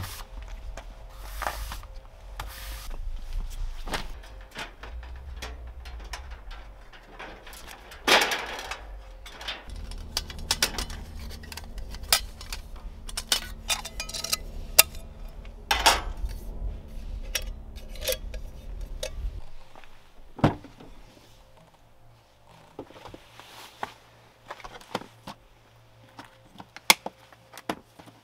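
Scattered clinks, knocks and rattles of camp gear being handled, including an aluminium pot set placed beside a two-burner gas camp stove. A steady low rumble under the handling cuts off about twenty seconds in.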